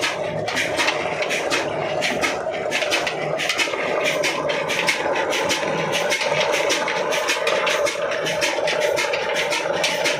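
A 35 HP desi Ruston-type single-cylinder diesel engine running steadily under load, its beat coming about five times a second, with a steady hum over it from the flat belts and line-shaft pulleys it drives.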